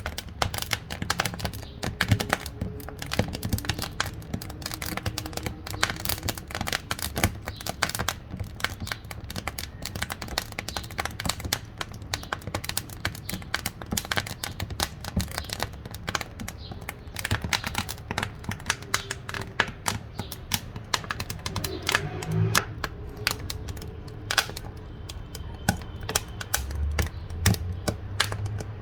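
Wood fire crackling in a wood-burning cookstove: a dense, irregular run of sharp snaps and pops that never lets up.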